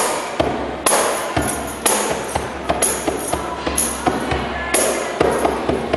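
Djembe and tambourine played together in a steady beat, with a bright tambourine jingle hit about once a second and lighter hand strikes between.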